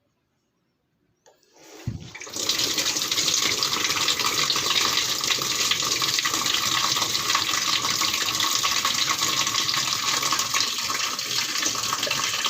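Running water splashing steadily as the washing machine's removed part is rinsed clean. It starts about a second in, swells to full strength within a second, and then runs without a break.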